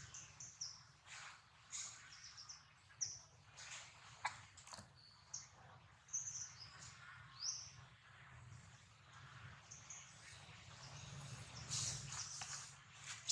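Birds chirping in many short, high calls, with scattered sharp clicks or rustles over a steady low background hum.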